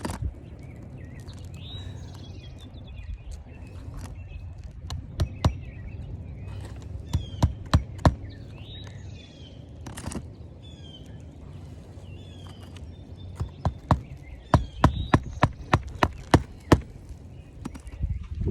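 Hammer driving roofing nails into asphalt shingles: scattered single strikes, then a quick run of about a dozen blows near the end. Birds chirp in the background.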